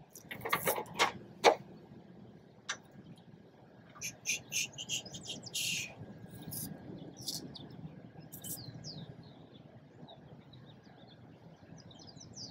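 Birds chirping intermittently, with a few sharp metallic clicks and knocks in the first second and a half and another near three seconds, from roof-rack bolts and drop-in nuts being handled and fitted.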